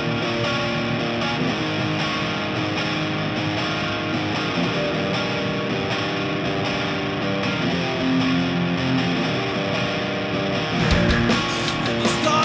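Opening of a pop-punk song: a distorted electric guitar rings out sustained chords, changing every second or two. Drums and the full band come in near the end.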